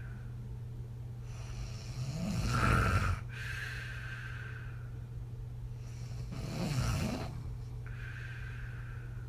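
A woman snoring on her back, blowing out through her lips on each out-breath. Two full breaths: a loud snore on the in-breath about two and a half seconds in and again about seven seconds in, each followed by a longer, breathy puff out.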